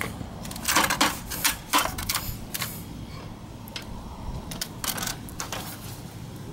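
Torn, rusted sheet metal of a cut-open scooter muffler rattling and clinking as it is turned over by hand, in a series of short, irregular clicks that thin out after the first few seconds.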